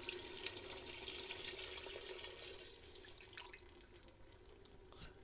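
Stock being poured from a measuring jug into a stainless steel stockpot, a faint steady splashing that tapers off after about two and a half seconds, followed by a couple of faint clicks.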